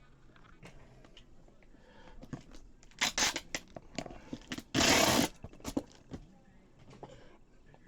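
Cardboard mystery boxes being handled, with scattered rustles and knocks, a short tearing sound about three seconds in, and a louder half-second tearing rip about five seconds in.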